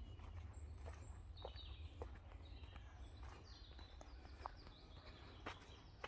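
Faint woodland birdsong, several short high chirps and whistles, over a steady low wind rumble, with a few soft footsteps on a dirt path.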